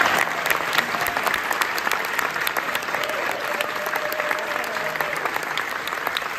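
Theatre audience and cast on stage applauding steadily, a dense patter of many hands clapping.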